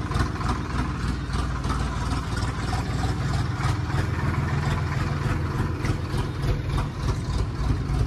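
Diesel tractor engine running steadily with a fast, even pulse.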